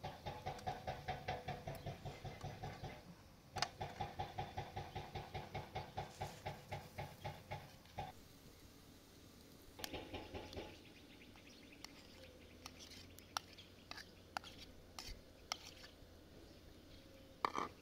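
A utensil beating a mixture in a metal dish: quick, even clinking strokes, about four to five a second, in two long runs and a short third one. After that come scattered single clicks of metal ware.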